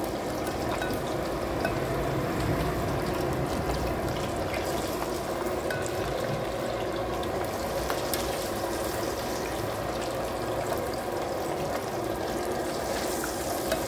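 Chicken wings deep-frying in a pot of hot oil: a steady bubbling sizzle, with a few faint clicks.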